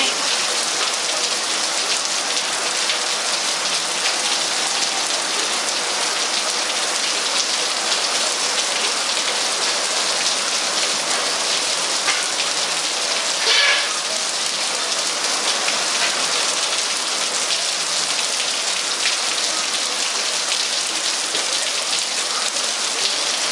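Rain falling steadily, an even hiss with no break. About halfway through there is one brief louder noise on top of it.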